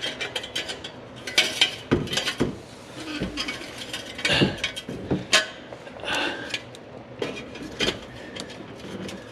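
Irregular metallic clinks, clanks and rattles of exhaust parts and hand tools being handled while an axle-back muffler is wrestled into place under a car.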